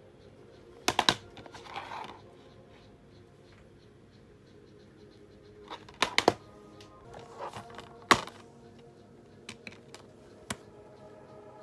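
Plastic Blu-ray case being handled and opened, with clusters of sharp plastic clicks and clacks about a second in, around six seconds and just after eight seconds, then a few lighter clicks as the disc is taken off its hub.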